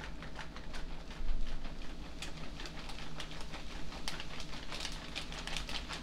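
Faint, irregular crinkling and crackling of a garlic bread's packaging bag being handled, over a steady low hum.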